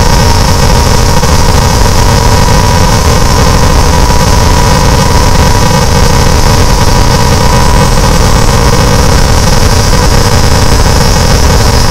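Harsh noise music: a loud, unbroken wall of distorted experimental electronic noise, with a thin steady whistling tone running through it that fades out about two-thirds of the way through.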